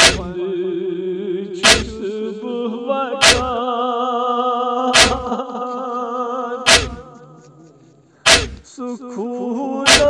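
A man's voice singing a noha, a Shia lament, in long wavering held notes over a sharp slap-like beat that falls about every second and a half. The voice breaks off briefly about three-quarters of the way through while the beat keeps time.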